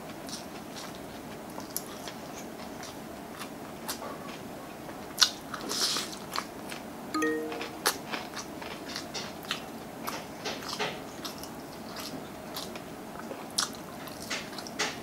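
Close-miked eating of crispy fried chicken: irregular crisp crunches, bites and wet chewing, busier from about five seconds in.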